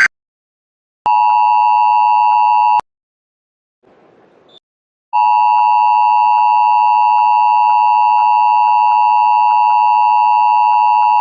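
Emergency Alert System attention signal: a steady two-tone electronic tone just under 1 kHz that announces a warning. It sounds for under two seconds about a second in, breaks off, and comes back about five seconds in, then holds steady.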